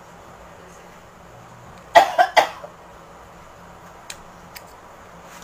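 Three quick coughs in a row about two seconds in, with a couple of faint clicks later.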